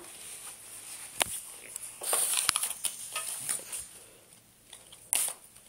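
Pokémon trading cards being handled and flipped through: soft rustling with a few light clicks, and a short brushing sound near the end.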